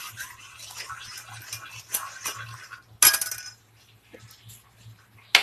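Metal spoon stirring sugar syrup in a metal pan, scraping and clinking against the sides, with a sharp clink about three seconds in and another short one near the end.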